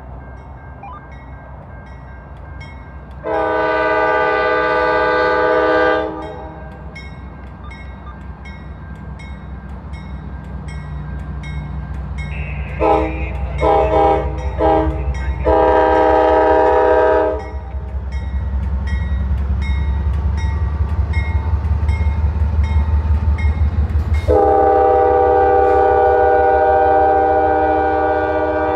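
Norfolk Southern light engine move of four diesel-electric locomotives, led by AC44C6M 4288, passing close by while the lead locomotive sounds its multi-chime air horn in a salute. There is a long blast about three seconds in, then a quick run of short toots around thirteen seconds, then a second long blast. A last long blast runs almost to the end. Under the horn, the low rumble of the locomotives' diesel engines grows as they draw level and pass.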